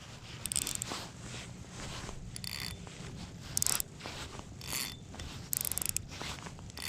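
Fishing reel ratcheting in six short bursts of rapid clicks spread across a few seconds.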